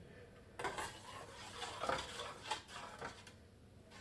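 Metal spoon stirring and scraping in a pan of cooking jaggery mixture, with a few light knocks and squeaks against the pan.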